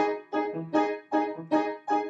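Acoustic upright piano playing a jazz improvisation: chords struck in a steady rhythm, about two to three a second, each dying away quickly before the next.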